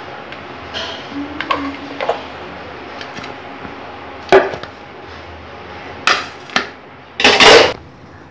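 Knocks and clatter of a steel idli-cooker plate handled and tipped over a serving plate to turn out steamed jaggery kozhukattai: a few light clicks, sharp knocks about four and six seconds in, and a half-second clatter near the end, the loudest sound.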